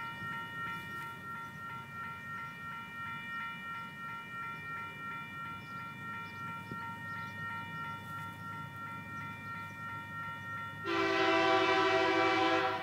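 Level crossing warning bell ringing steadily in a repeated pulse while the crossing lights flash. About eleven seconds in, the approaching TasRail TR-class diesel locomotive sounds a long horn blast of about two seconds, the loudest sound here.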